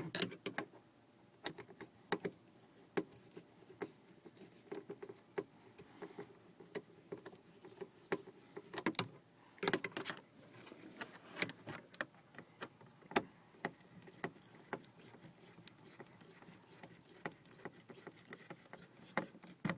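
Scattered light clicks and taps of a hand screwdriver driving Phillips screws into a car's plastic interior door panel, with the plastic trim creaking and knocking as it is handled.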